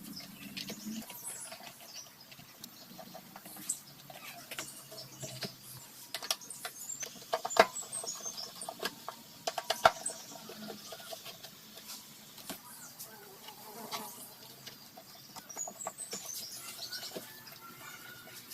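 Scattered light clicks and taps of handling, with two sharp knocks near the middle and a few faint, high chirps.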